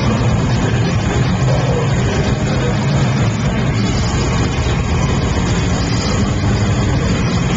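Technical death metal band playing live: heavily distorted electric guitars over fast, dense drumming, loud and unbroken, heard through a pocket camcorder's microphone.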